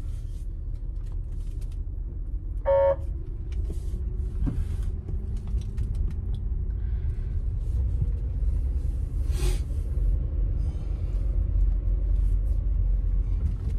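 Steady low rumble of a car's engine and tyres heard from inside the cabin while driving. About three seconds in there is one short beep.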